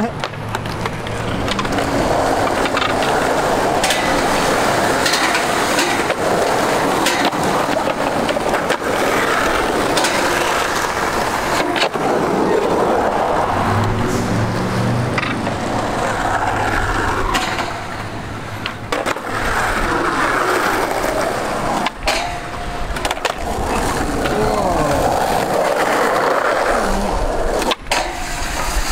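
Skateboard riding on concrete: wheels rolling and trucks grinding along metal rails, with sharp clacks of the board popping and landing throughout.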